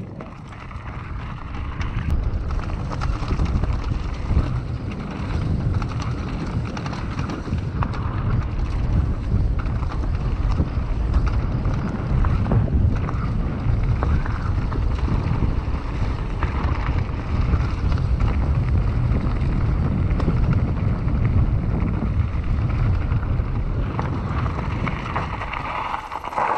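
Wind buffeting the action camera's microphone as a downhill mountain bike descends fast on a gravel forest track, with tyres crunching over gravel and the bike rattling over bumps. The rush builds over the first few seconds as the bike picks up speed.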